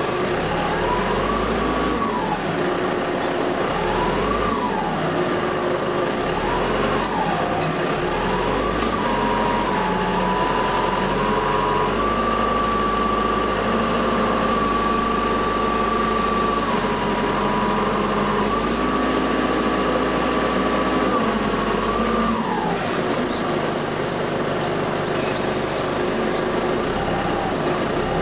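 Rough-terrain crane's diesel engine revving up and down several times, then held at high revs with a steady whine, dropping back to idle near the end.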